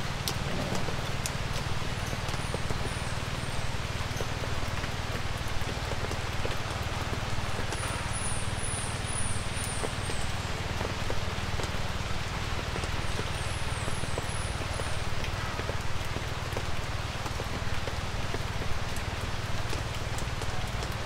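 Light rain falling steadily in woodland, a dense patter of small drops over a low steady rumble. Short runs of high, falling chirps come three times.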